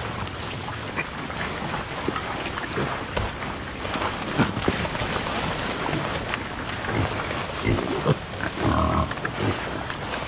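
Pigs grunting in short, irregular calls, with one longer, higher call near the end.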